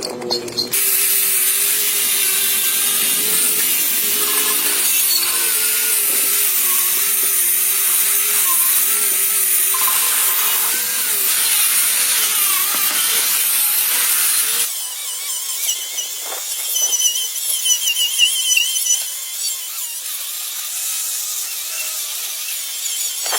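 A handheld power tool working on a part: a loud, high hiss over a wavering whine. The sound changes abruptly partway through, turning thinner and higher.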